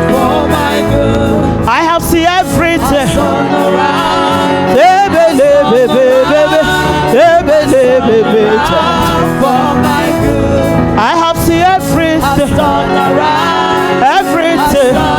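Gospel worship music: a voice singing a wavering melody over steady sustained backing chords.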